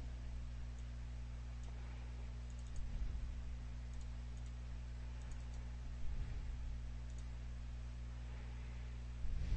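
Scattered computer mouse clicks and keystrokes over a steady low electrical hum from the recording setup, with a few soft low bumps about three seconds apart.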